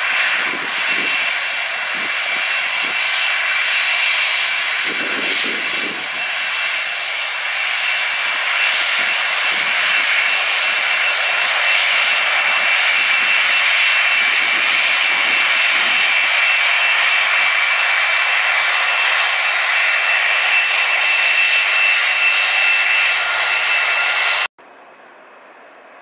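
Boeing 747-400 taxiing past, its jet engines giving a steady roar with high whistling tones that grows slightly louder. About two seconds before the end it cuts abruptly to a much quieter jet-engine sound.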